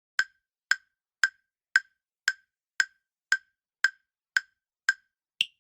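Quiz countdown timer sound effect: eleven sharp wood-block-like ticks, about two a second, the last one higher-pitched as time runs out.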